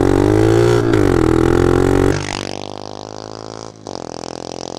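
Taotao DB17 125 pit bike's single-cylinder four-stroke engine running straight-piped, with the exhaust muffler gone, revving up and down under throttle. About two seconds in it drops back to a lower, quieter, steadier run.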